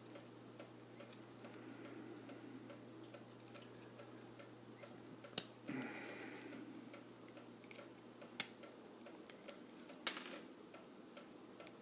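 Lock picking on a Medeco high-security lock: a few sharp, sparse clicks and small ticks of the pick and tension tool working the pins, over a faint steady hum. The attempt to pick it open comes close but does not succeed.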